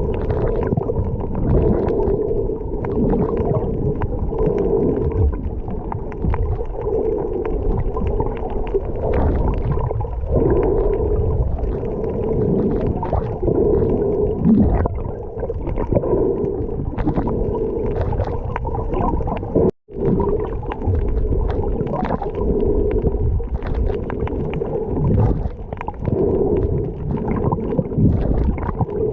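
Muffled underwater noise picked up by a camera in a waterproof housing while snorkeling: a steady low rumble with gurgling swells of water and bubbles. It breaks off for an instant about twenty seconds in.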